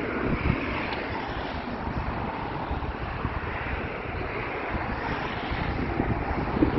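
Wind buffeting the microphone: a steady rushing noise with a flickering low rumble, and a soft knock about half a second in and another near the end.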